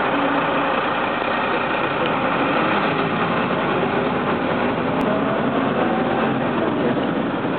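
MAN NL202 city bus's diesel engine and running noise heard from inside the passenger cabin, steady throughout, with a faint whine rising in pitch about five seconds in.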